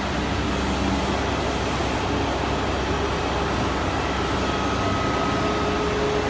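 CNC machine running its program in automatic mode: a steady mechanical noise with a low hum, and a faint whine for a moment in the second half.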